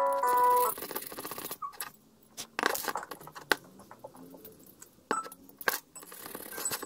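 A needle file scraping and clicking against the aluminium cooling fins of a new Malossi cylinder head while its casting burrs are filed off, with several sharp metallic taps. Background music plays for the first moment before it stops.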